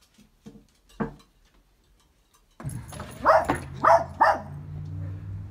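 A few faint taps, then a dog barks three times in quick succession about three seconds in, over a steady low hum.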